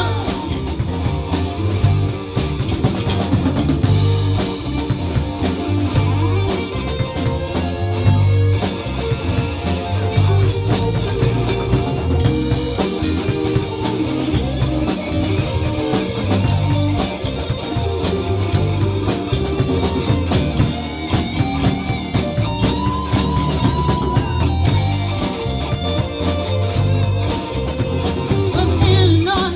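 Live rock band playing an instrumental passage: electric guitars over a steady drum-kit beat, with no vocals.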